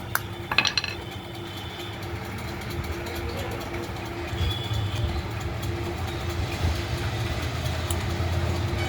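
Steady low mechanical rumble with a faint steady hum, like an engine running, with a couple of light clicks within the first second.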